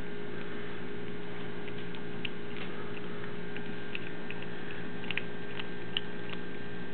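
Kittens eating wet food from a metal bowl: scattered small clicks and ticks of teeth and food against the bowl, a dozen or so over the last five seconds, over a steady electrical hum.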